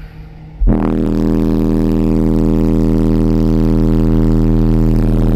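Car audio subwoofers playing a 40 Hz test tone at full power in a sealed vehicle cabin, an SPL burp measured at 158.1 dB. It is a very loud, steady drone that starts abruptly about half a second in and cuts off sharply near the end.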